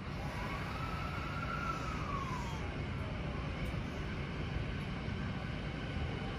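E217-series electric commuter train starting to pull out of the platform: a steady low rumble, with a motor whine that rises and then glides down in pitch about a second or two in.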